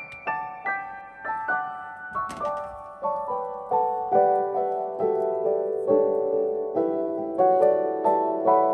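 Background piano music: a gentle melody of single notes struck in a steady run, about three a second.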